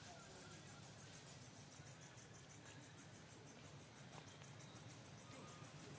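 Insect chirping: a high-pitched call pulsing evenly, about five pulses a second.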